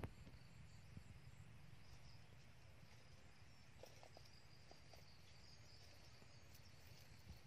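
Near silence: faint outdoor background with a low rumble and a faint, steady high-pitched hum.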